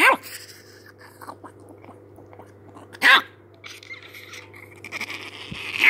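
Chihuahua barking in play while nipping at a hand: a sharp bark at the start, another about three seconds in, and a rougher bark near the end, with faint snapping and mouthing sounds between.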